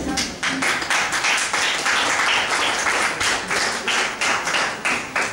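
Applause: a roomful of adults and children clapping together, many quick overlapping claps.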